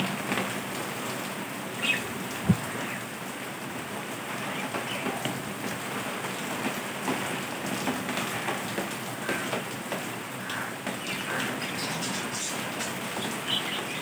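Budgerigars giving short chirps now and then over a steady crackling, rain-like noise, with one sharp thump about two and a half seconds in.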